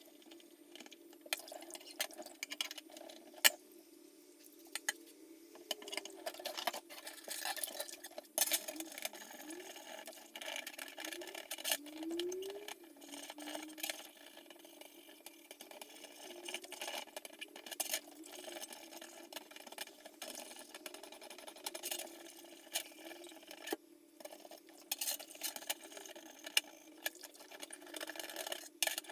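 Irregular clicks, taps and scrapes of small parts being handled and worked on, over a steady low hum.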